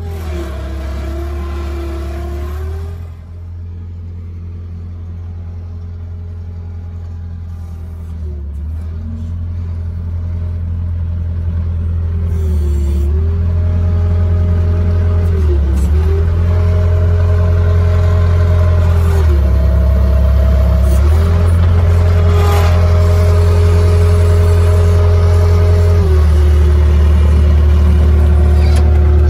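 Bobcat skid-steer loader running. Its engine gives a steady low hum, with a whine above it that shifts up and down in pitch several times. The sound grows louder through the first half and then holds steady.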